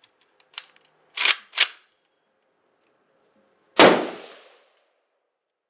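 A single loud shot from an Arsenal SLR-106UR AK pistol in .223/5.56, fired through its muzzle brake about four seconds in, its report dying away over nearly a second. Before it come a few small clicks and two sharp metallic clacks as the pistol is handled.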